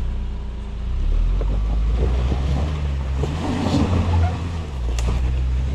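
Suzuki Jimny's 1.5-litre four-cylinder petrol engine running at low revs as it crawls up a rocky dirt track. The engine gets louder about a second in, with scattered crunches on the stony ground.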